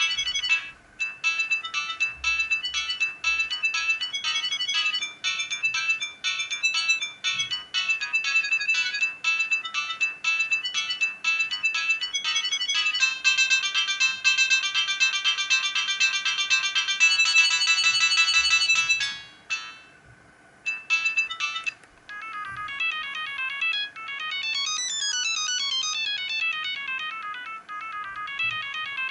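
Siemens CL50 mobile phone playing its built-in ringtones: a fast electronic melody of high beeps stops about 19 seconds in, and after a short pause a different beeping melody starts about 22 seconds in.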